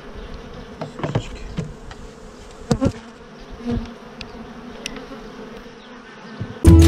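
Honey bees buzzing around an open hive, with a few sharp wooden knocks as hive parts and the roof are handled. Loud guitar music cuts in right at the end.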